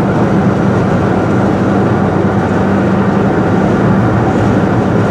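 Car driving, heard from inside the cabin: a steady drone of engine and road noise with a low, even hum.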